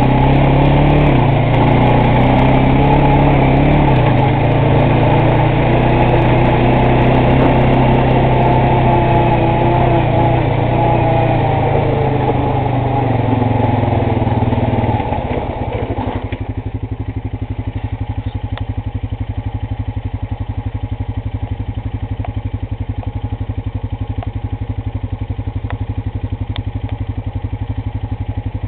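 Honda Rancher 420 ATV's single-cylinder four-stroke engine running while the machine is ridden, its pitch wavering. About halfway through it drops suddenly to a steady, quieter idle.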